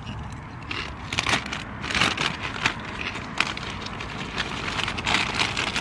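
Close-up crunching of thick hand-cooked potato crisps being chewed: a run of irregular, sharp crunches.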